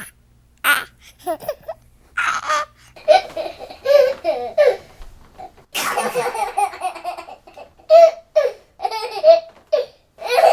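A baby laughing in repeated short bursts of giggles and belly laughs, with brief pauses between them.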